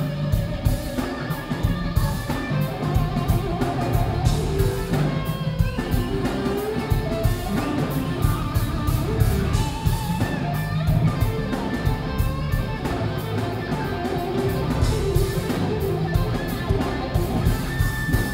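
Live instrumental rock band playing loud: an electric guitar lead over drum kit and bass, heard through a smartphone microphone, which makes it sound muffled with a muddy bass.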